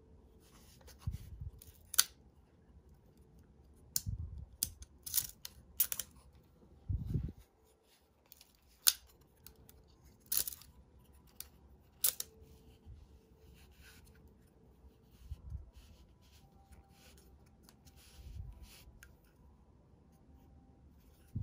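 Handling noise from a large-format camera lens on its metal lens board being turned in the hands: scattered sharp clicks and light knocks of metal and fingers, with soft low thumps between them.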